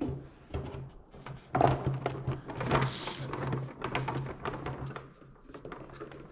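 Parts and packaging being handled: a run of knocks, clatters and rustles, the loudest about a second and a half in, over a faint steady low hum.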